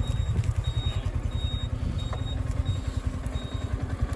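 Wind buffeting the microphone: an uneven, fluttering low rumble.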